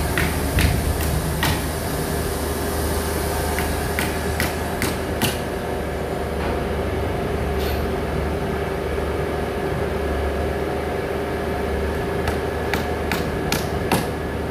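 Hammer driving nails into a wooden crate, in runs of sharp strikes: a handful in the first second and a half, another run about four to five seconds in, and a quick run near the end. A steady low hum runs underneath.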